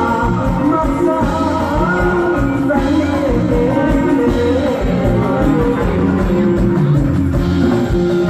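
Live band music with a singer over a steady drum beat, played loud.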